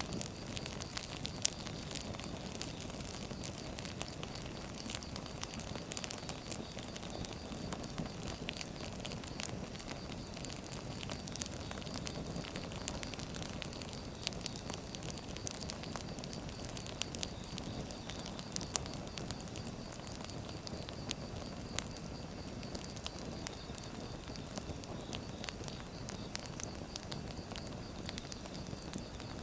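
Wood fire crackling, with frequent sharp irregular pops and snaps over a steady rushing hiss.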